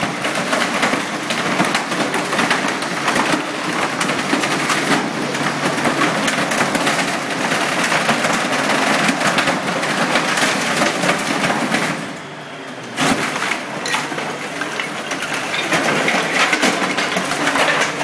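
Desk being crushed: a dense, continuous run of cracking and breaking, with a short lull about twelve seconds in that ends in a sharp crack.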